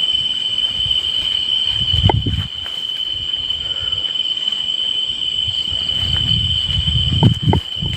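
A steady high-pitched insect drone runs throughout. Creaks and squeaks of bamboo stems rubbing against each other in the wind come about two seconds in and again near the end, with low rumbling thumps.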